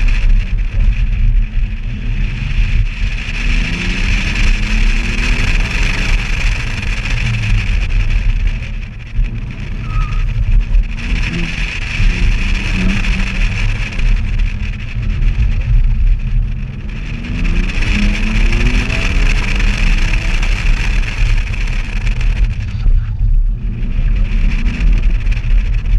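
A BMW being driven hard through a cone course, heard from a camera mounted outside the driver's door: the engine revs rise in repeated pulls, tyres squeal in three long stretches through the turns, and wind rumbles heavily on the microphone throughout.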